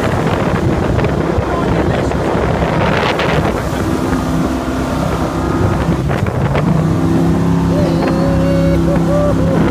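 Jet boat's engine running under way over rushing water, with wind buffeting the microphone; the engine's steady drone becomes clearer and more even from about seven seconds in.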